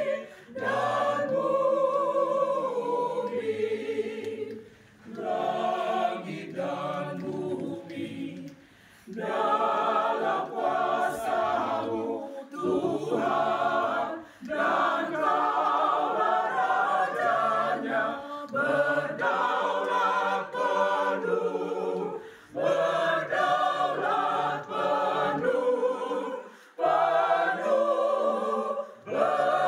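Amateur mixed choir of men and women singing a hymn in parts, unaccompanied. The singing runs in phrases of a few seconds, each broken by a brief pause for breath.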